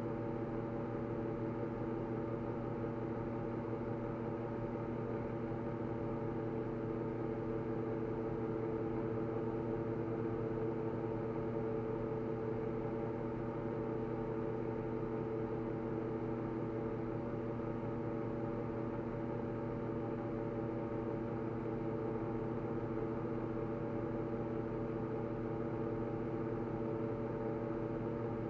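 A steady mechanical hum made of several held tones over a light hiss, unchanging in pitch and level.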